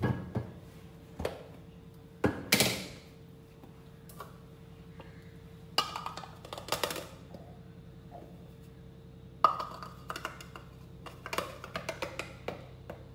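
Plastic measuring cup and plastic flour container knocking and tapping together as maida flour is poured from the container into the cup, with short hissing rushes of sliding flour. Knocks come in scattered clusters, with a quicker run of small taps near the end.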